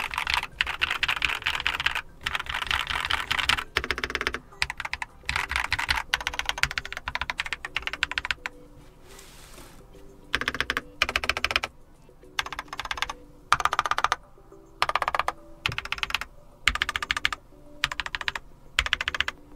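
Typing on a mechanical keyboard as a sound test: quick runs of keystrokes in bursts, with short pauses between them and one longer pause about halfway through.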